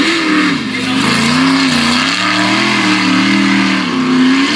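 Mega truck's engine revving hard under load, its pitch rising and falling again and again as the driver works the throttle through the obstacle course, with dirt spraying from the tyres.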